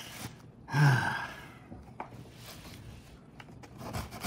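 A man's heavy sigh about a second in, a loud breathy exhale with a bit of voice at its start that trails off, from overwhelming emotion. A few small clicks follow as the cardboard box is handled.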